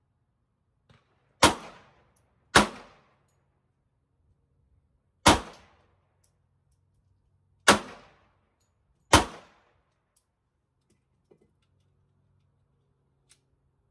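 Five semi-automatic pistol shots at uneven intervals over about eight seconds. Each is a sharp crack with a short echo.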